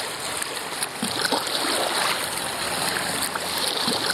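Water rushing and splashing steadily along the bow of a whitewater kayak as it is paddled.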